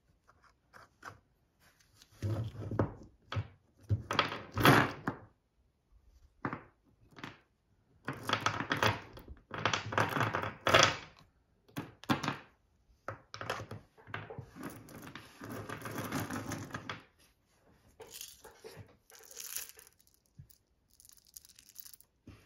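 Loose Aguila .22LR cartridges clattering and clinking as they are knocked out of a plastic ammo tray onto a wooden tabletop and scooped up by hand, with the plastic tray rattling. The noise comes in several irregular bursts of many small clicks.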